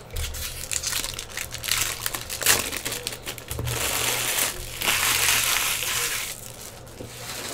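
Foil trading-card pack wrappers being torn open and crumpled by hand, crinkling in several stretches.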